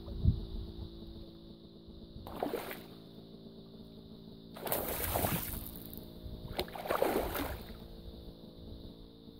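A hooked tararira thrashing and splashing at the surface of shallow floodwater. There are three separate bursts of splashing, the longest about halfway through.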